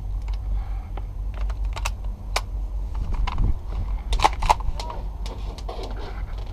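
Airsoft guns firing during a game: scattered sharp snaps, with a quick cluster of loud ones about four seconds in, over a steady low rumble of wind and movement on the microphone.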